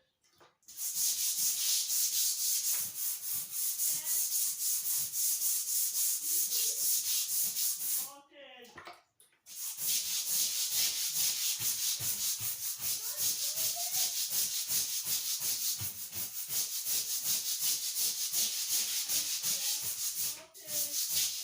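Stiff brush scrubbing a thick anti-slip hospital-type floor covering hard, in fast back-and-forth strokes about four a second, working at dirt stuck on firmly. The scrubbing stops for about a second and a half near the middle, then carries on.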